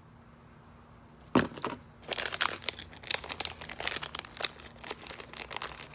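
Packaging of a mystery mini keychain blind pack being torn open and handled: one sharp rip about a second and a half in, then irregular crinkling.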